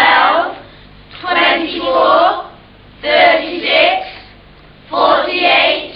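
Children's voices singing short phrases, each in two parts, about one every two seconds, with short gaps between them.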